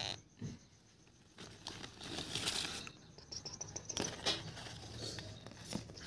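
Soft, uneven rustling and scratching on newspaper, as a baby Indian ringneck parakeet chick shuffles about, starting about a second and a half in.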